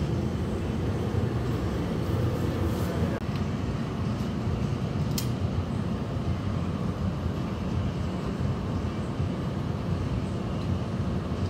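Steady low roar of a glassblowing studio's gas-fired furnace and glory-hole burners, with a single sharp click about five seconds in.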